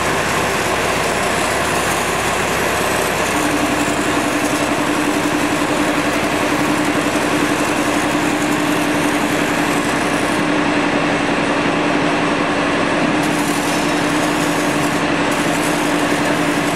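Hand-held spray wand hissing steadily as foam cleaner is sprayed onto concrete-crusted machinery, with a small motor's steady hum coming in about three seconds in.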